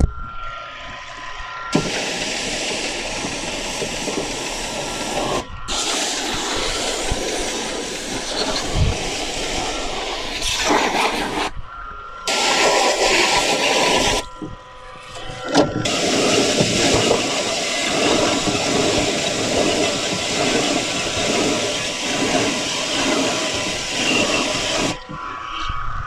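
Electric pressure washer spraying water onto a window air conditioner's coil and casing: a loud, even hiss that stops and starts again several times as the trigger is released and pulled. In the short breaks a steady whine can be heard.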